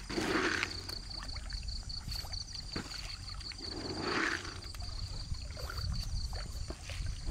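Pond water sloshing and lapping under a low rumble of wind on the microphone, with a steady high-pitched pulsing trill over it. A soft swish comes near the start and again about four seconds in.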